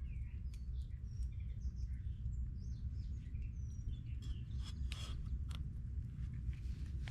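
Birds chirping over a steady low rumble, with a few sharp clicks about four to five seconds in.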